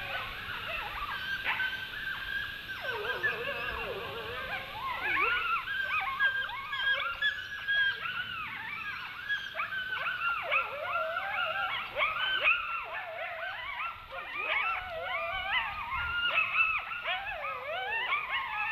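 A pack of wolves howling in chorus: many voices overlap in long rising and falling howls, with quick wavering yips mixed in. The chorus grows denser after about six seconds.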